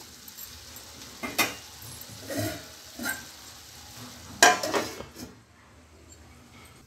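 Curry sizzling gently in a steel pot, with a few light clinks, then a steel plate set down on the pot as a lid with a ringing metallic clank about four and a half seconds in; the sizzle is quieter once the pot is covered.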